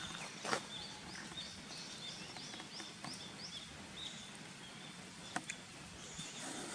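A Japanese bush warbler calling in a quick run of about ten short, rising notes, roughly three a second, which fades out about halfway through. A couple of soft clicks stand out over faint outdoor background noise.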